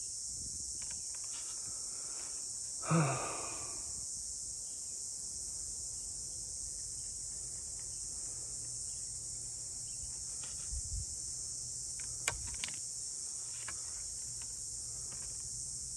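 Steady high-pitched insect trilling, like a cricket chorus, runs throughout. About three seconds in, a man gives a short sigh, and a faint click sounds near the end.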